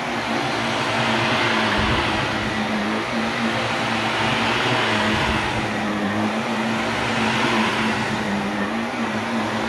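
Shark Navigator Lift-Away Deluxe upright vacuum cleaner running steadily on a rug, its hiss swelling and fading every few seconds as it is pushed back and forth.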